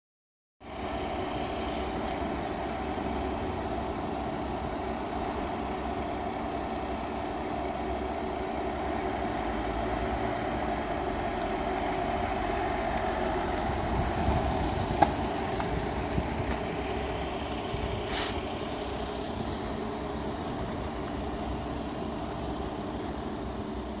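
A vehicle engine running steadily at low revs, a little louder around the middle. A single sharp click comes about fifteen seconds in, and a short hiss about eighteen seconds in.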